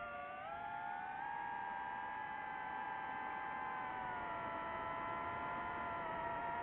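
DJI FPV drone's motors and propellers whining in flight, several pitches running together. They step up about a second in and sag a little around four seconds in as the throttle changes.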